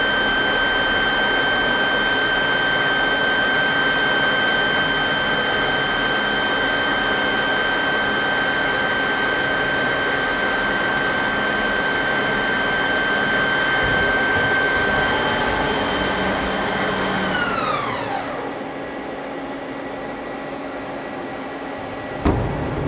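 Live-tool spindle of a Mazak Quick Turn 10N CNC lathe running at 2500 rpm with a steady high whine and overtones while it mills a slot in the bar end. About 18 seconds in it winds down, the whine falling quickly in pitch as the program ends. A sharp clunk comes near the end.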